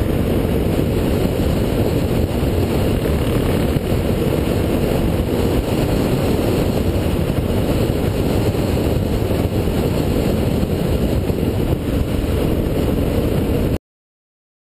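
Steady wind rush on a motorcycle-mounted action camera's microphone at road speed, with the motorcycle's engine running steadily at cruise underneath. The sound cuts out abruptly about a second before the end.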